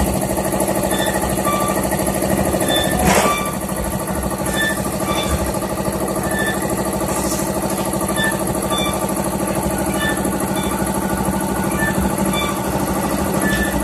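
Hydraulic cement roof-sheet forming press running with a steady machine hum, with one sharp clank about three seconds in.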